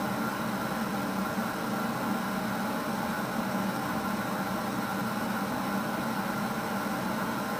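Steady background hiss with a faint, even hum and no distinct events: room tone picked up during a silent pause.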